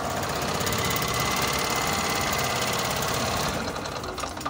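Small gasoline generator engine running steadily at low speed. The owner traces the low speed and low output to a rusted, faulty governor spring. The sound drops a little in level near the end.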